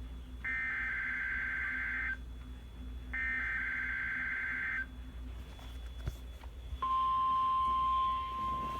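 NOAA Weather Radio EAS/SAME digital header bursts from a weather radio's speaker: two buzzy data bursts of about a second and a half each, a second apart. About seven seconds in, the steady 1050 Hz weather alert tone begins and holds, louder than the bursts: the tones that open a new alert or test.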